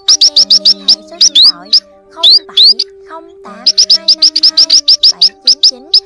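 Munias calling: loud, rapid runs of short high chirps and quick rising whistles, with a brief lull about halfway through. Under them run lower held notes.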